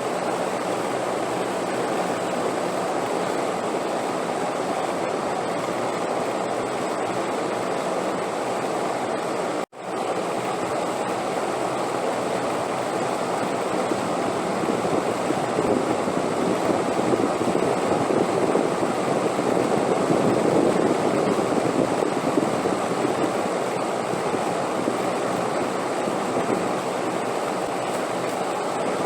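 Steady rushing wind, swelling louder in the middle, with a faint steady high tone over it. The sound cuts out for an instant a little before halfway.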